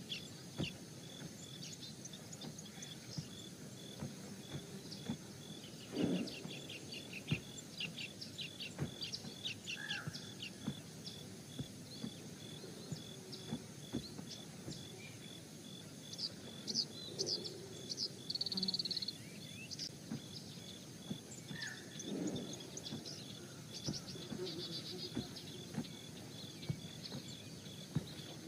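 Outdoor nature ambience: many short bird chirps in quick runs over a steady, pulsing insect trill, with a couple of brief low sounds in between.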